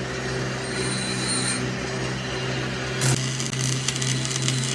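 Metal repair tool work: a motor-driven tool runs with a steady hum while metal is scraped and rasped. The scraping turns brighter and harsher about three seconds in.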